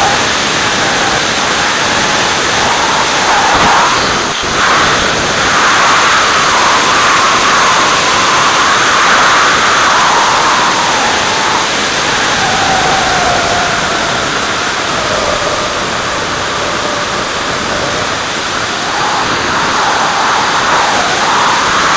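Steady loud rush of airflow and engine noise picked up by a camera mounted on a jet's wing in flight, with a faint tone sliding slowly downward about halfway through.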